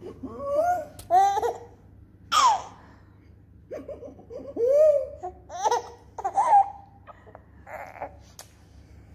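Four-month-old baby laughing and squealing in short bursts, with one high squeal that falls in pitch about two and a half seconds in.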